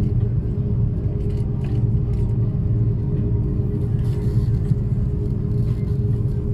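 Steady low rumble of a running vehicle, with a constant hum over it.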